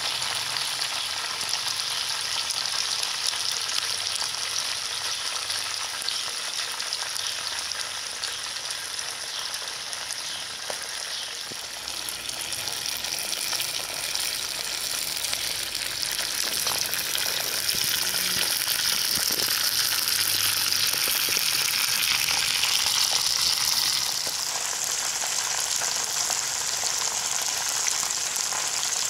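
Whole small chickens deep-frying in a pot of hot oil: a steady sizzle of bubbling oil with a few faint pops. It grows louder through the second half, then eases back a few seconds before the end.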